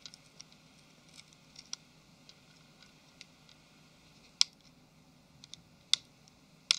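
Small sharp clicks and ticks of a metal screwdriver tip prying at a tiny snap-on antenna cable connector on a phone's circuit board, with three louder single clicks in the second half.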